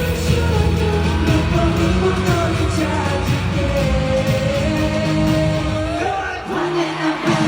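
A man singing a pop-rock song over a band, holding long notes. The band's low end drops out for about a second near the end.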